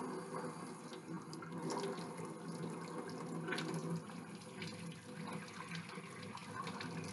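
Kitchen faucet running from a pull-down spray head into a stainless steel sink, the stream splashing over a hand held under it.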